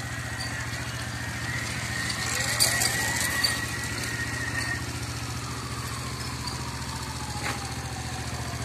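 Dayang Runner Bullet 100cc motorcycle engine running steadily at idle. A fainter whine that rises and then slowly falls in pitch runs over it, with a few short clicks.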